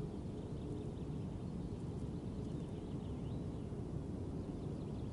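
Steady, fairly quiet outdoor background noise, mostly low-pitched, with a few faint distant bird chirps around the middle.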